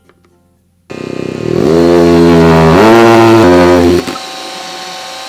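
Power drill drilling the bracket holes above a window frame: the motor starts about a second in, spins up in pitch, runs steady and steps higher as it works, then drops to a quieter steady run for the last second or so.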